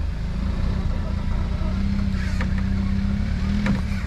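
Jeep Wrangler Rubicon engine running as the Jeep is driven up an obstacle off-road: a steady low drone with a hum that strengthens about halfway through, and a couple of sharp clicks in the second half.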